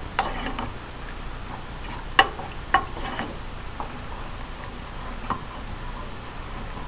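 Wooden spoon stirring raspberries and sugar in a small metal saucepan as the fruit cooks down to a mushy sauce, with a few sharp knocks of the spoon against the pot, the loudest about two and three seconds in. A steady soft hiss runs underneath.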